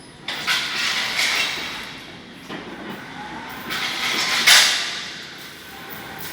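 Gilils hoist crane running through a test movement: a grinding mechanical noise in two runs of about two seconds each, the first starting with a sudden jolt and the second louder.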